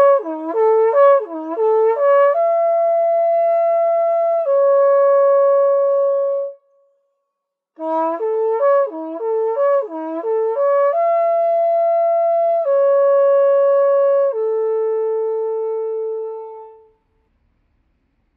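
Ligawka, the long wooden horn of Podlasie and Mazovia, blown in two traditional Advent calls. Each call opens with a quick run of short alternating notes and settles into long held notes stepping down in pitch. The second call ends on a long low note that fades out near the end.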